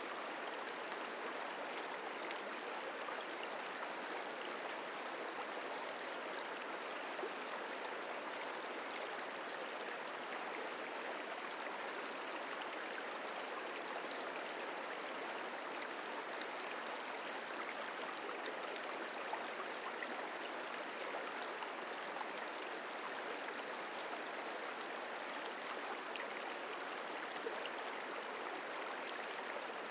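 Merced River flowing, a steady, even rush of water with faint tiny splashes over it.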